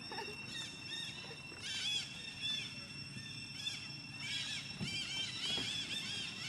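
Outdoor animal calls: clusters of short, high-pitched arching chirps repeating throughout, over a steady high-pitched drone.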